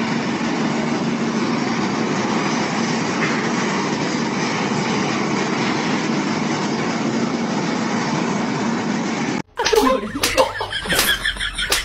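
Gas roofing torch burning with a steady hiss as it heats a roll of torch-on bitumen membrane. It cuts off suddenly about nine and a half seconds in, giving way to a few sharp slaps and a voice.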